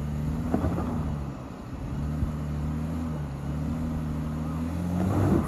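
BMW car engine running under load as it pulls on a buried pole, its engine speed sagging and rising a little, with a louder surge near the end.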